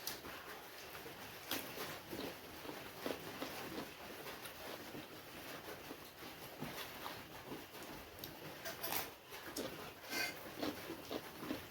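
Eating sounds from a momo mukbang: close-up chewing and mouth noises, with a few short clicks of a spoon on a plate, over a steady background hiss.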